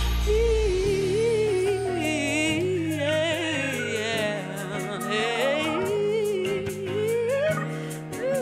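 A woman sings long, wavering melismatic runs with vibrato over a live band of electric guitar, keyboards and drums, with a steady cymbal tick coming in about three seconds in.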